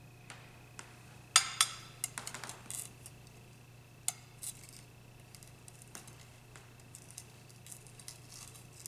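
A small glass beaker and a metal spatula clinking, tapping and scraping on a glass slab. A couple of sharp clinks about a second and a half in, then a run of light scrapes and scattered taps, over a steady low hum.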